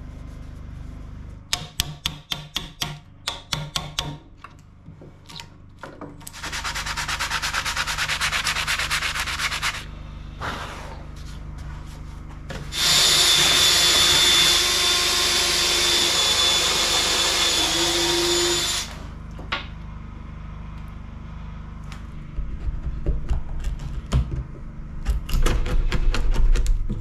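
A run of sharp knocks, then several seconds of rasping, then a cordless drill driving a bit into a wooden board for about six seconds, its motor the loudest sound. Near the end, short scraping strokes of a hand blade cutting wood out of the channel along the old cedar door's edge.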